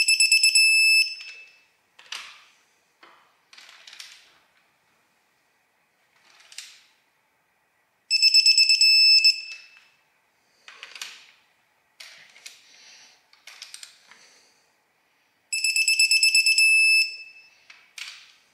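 Digital torque wrench beeping as each ARP head stud on a Toyota 2JZ cylinder head reaches its 33 ft-lb target torque: three rapid runs of high beeps, each about a second long, at the start, about 8 seconds in and about 15 seconds in. Short metallic clicks of the wrench and socket come between the beeps.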